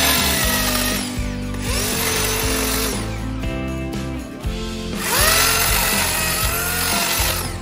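Parkside PKS 2200 A1 electric chainsaw cutting through thin shrub stems in three bursts, its motor whine rising and falling with each cut, the last burst the longest and loudest.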